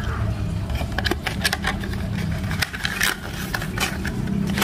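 Clear plastic blister packaging being handled, giving many small crackles and taps, over a steady low hum.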